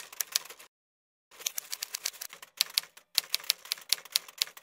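Typewriter keys clacking in quick runs of strikes, with a pause of about half a second about a second in.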